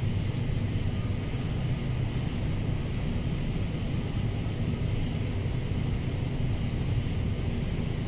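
Evening chorus of cicadas, a continuous high-pitched drone that holds steady throughout, over a louder steady low rumble.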